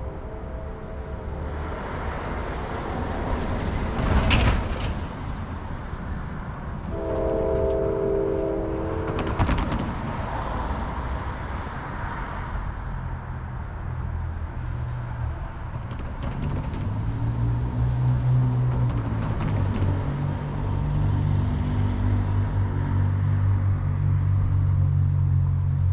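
A distant Norfolk Southern freight locomotive horn sounds a multi-note chord, briefly near the start and again for about two seconds a few seconds later, with road traffic rumbling across the crossing in between. From past the halfway mark, the low steady drone of the approaching train's diesel locomotives grows louder.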